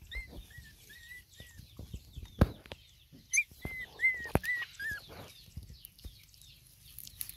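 Puppy whimpering in a run of short, high-pitched squeaks, about three a second, which breaks off and then starts again. Two sharp knocks come midway.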